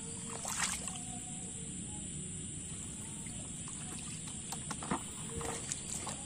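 Shallow muddy water splashing and sloshing as a fish is grabbed by hand and carried through a ditch. There are a few sharp splashes, about half a second in and again near five seconds, over a steady high hiss.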